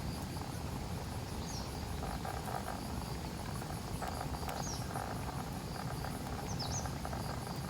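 Outdoor morning ambience: insects chirping in a steady, fast-pulsing high chorus, with a few short bird chirps and a low steady rumble underneath.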